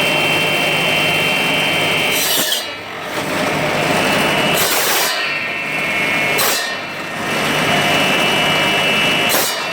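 Home-built bone-cutting power saw running steadily with a constant motor hum and high whine, its blade rasping through bone, with four short harsh surges of cutting noise.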